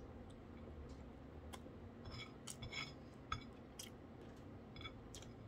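Faint eating sounds from a person eating rice noodles by hand: chewing with a scattering of small clicks and smacks, the clearest between about two and four seconds in.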